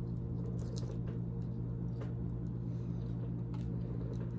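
Close-up mouth sounds of people eating seafood: chewing and soft wet smacks, with a few scattered small clicks, over a steady low hum.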